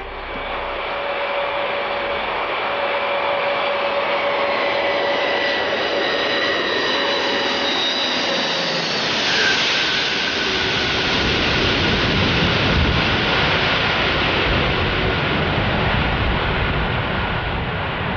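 Antonov An-225's six Progress D-18T turbofan jet engines running loud and steady. Whining tones slide lower in pitch through the first half, then a fuller rushing noise with more deep rumble takes over about halfway through.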